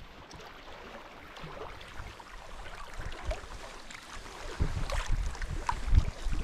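A kayak being paddled on choppy water: small splashes and drips from the paddle blades and water lapping against the hull. From about four and a half seconds in, gusts of wind buffet the microphone in low rumbling bursts.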